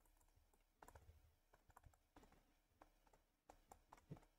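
Faint, irregular ticks of a stylus tapping on a tablet screen during handwriting, against near silence.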